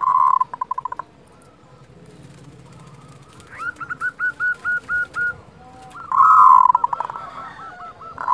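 Zebra dove (local perkutut) giving its rattling 'kerot' call. A rapid pulsed trill comes at the start, then a run of short evenly spaced notes midway, then another loud rattling call about six seconds in.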